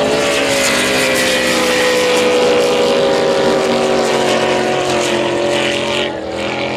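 Unblown racing powerboat engines running flat out as the boats pass, the engine note falling slowly as they go by.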